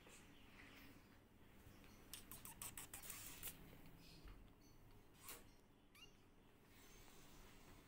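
Near silence with faint kitten sounds: a run of soft clicks a couple of seconds in and a brief faint mew near the end.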